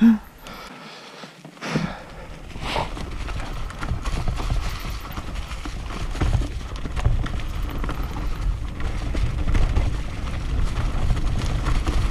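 Enduro mountain bike rolling down a rough, leaf-strewn trail: tyres crunching over leaves and stones, the bike rattling and knocking over bumps, with a dense low rumble on the microphone. It is quieter at first and picks up about two seconds in.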